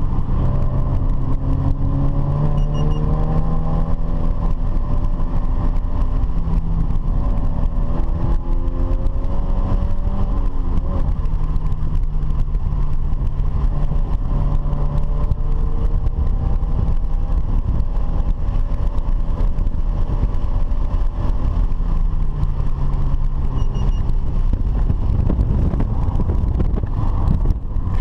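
Car engine running hard under load, its pitch climbing under acceleration and dropping back at gear changes and braking several times, over a heavy, steady rumble of road and wind noise.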